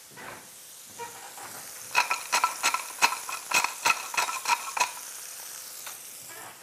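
Wooden pepper mill grinding pepper over fish fillets frying in butter: a quick run of crunching clicks lasting about three seconds, starting about two seconds in, over a steady sizzle from the pan.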